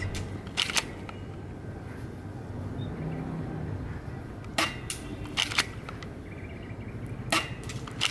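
Q1 airsoft spring pistol (Glock 18C replica) firing BBs: several sharp snaps a few seconds apart, some in quick pairs.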